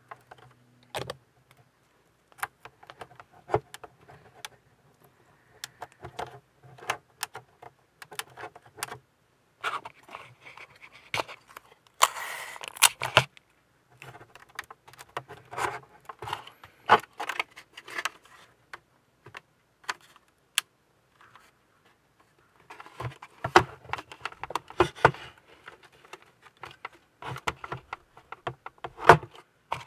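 Hands handling a plastic ship-model hull: irregular clicks and light knocks of the plastic parts, with short rustling bursts of masking tape being pulled and pressed on to clamp the glued hull halves together.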